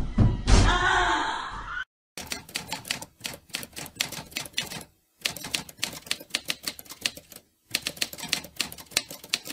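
Typewriter sound effect: keys clacking in quick runs, with short pauses between. Before it, the loud tail of a scream fades and cuts off abruptly about two seconds in.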